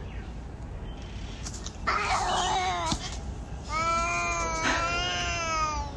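Two cats squaring off: a short harsh hiss about two seconds in, then a long, wavering yowl, a caterwaul, from the orange-and-white cat lasting about two seconds.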